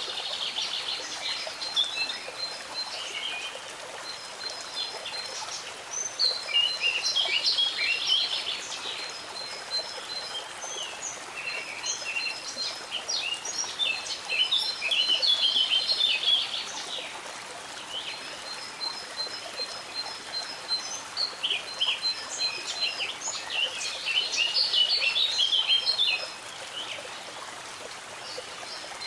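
Songbirds singing in four bursts of quick, jumbled song, one every six to eight seconds, with another bird repeating a thin, high note between them, over the steady rush of stream water.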